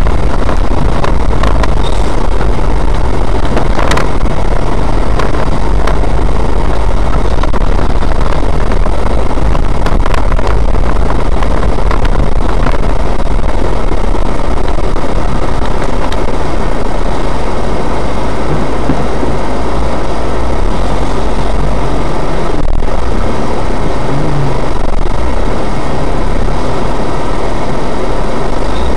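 Engine and running noise of an autocross car heard from inside its cabin, loud and constant, with knocks and rattles in the first few seconds as it goes over the rough dirt track.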